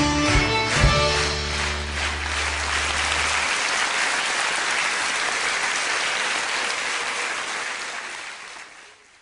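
A small band of double bass, guitar, accordion and violin plays its closing notes and ends on a held chord about three seconds in, while the audience applauds. The applause then carries on alone and fades out near the end.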